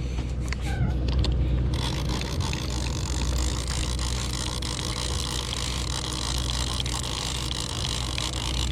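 Fishing boat's motor running with a steady low hum; about two seconds in a steady hiss starts and carries on over it.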